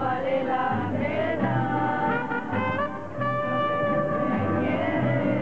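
Youth mariachi ensemble playing: trumpets and violins carry the melody over strummed guitars and a guitarrón bass keeping a steady pulse.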